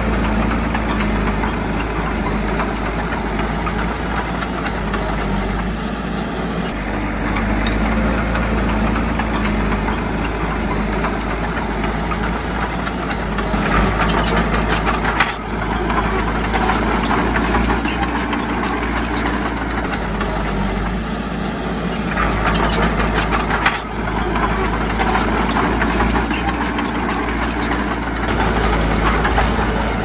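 Heavy diesel earthmoving machinery running steadily under load, with stretches of louder clattering about halfway through and again some seconds later.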